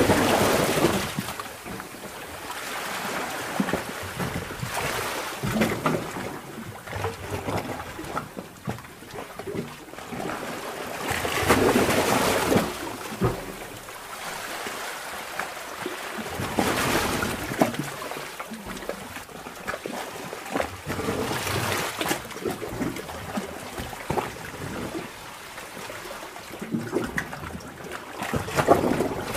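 Seawater surging and sloshing in a sea cave: swells wash in about every five to six seconds, with trickling and splashing between them.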